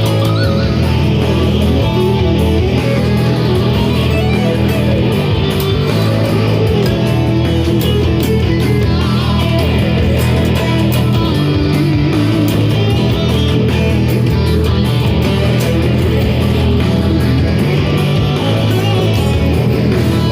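Electric guitar playing heavy-rock riffs and power chords in a right-hand picking warm-up, with steady bass notes underneath.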